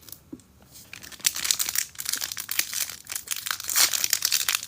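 Trading-card pack wrapper being torn open and crinkled, a dense irregular crackle starting about a second in.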